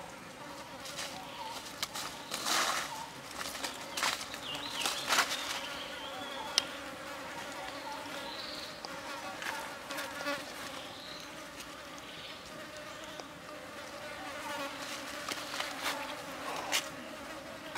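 Insects buzzing steadily with a wavering pitch, broken by a few sharp taps or knocks scattered through, the sharpest about six and a half seconds in.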